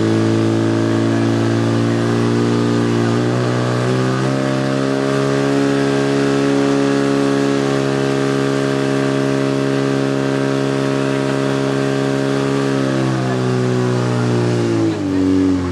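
Portable fire pump engine running hard under load, driving water through two attack hoses. Its pitch rises to a higher steady speed about four seconds in, holds there, then falls near the end as it is throttled back.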